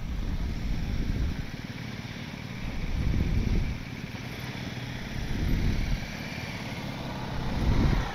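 Adventure motorcycle engines running at low speed, with a steady low rumble that swells louder about four times as the throttle opens.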